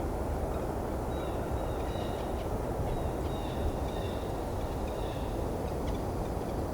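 Faint, quiet squeaks of a red-breasted nuthatch foraging, several short high calls spread over a few seconds, over a steady low background rumble.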